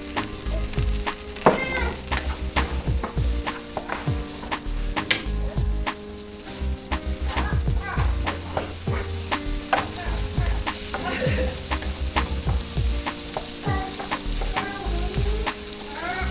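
Sliced carrots, bell peppers and onions with curry seasoning sizzling as they fry in oil in a pan, while a spoon stirring them knocks and scrapes against the pan in irregular clicks.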